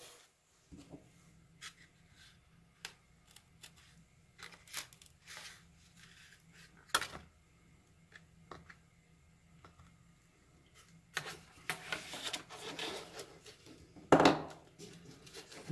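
Hands handling a foam RC airplane's fuselage and wing and its thin servo wires: scattered small clicks and light rustling, busier for a couple of seconds about eleven seconds in, then a sharper knock near the end.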